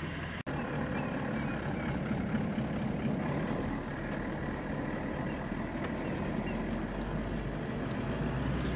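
A 4x4 vehicle driving along a dirt track: steady engine and road noise, briefly cutting out about half a second in.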